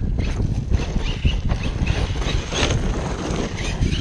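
Electric RC monster truck driving over loose dirt and gravel, with tyre crunch and short clattering knocks, under heavy wind rumble on the microphone.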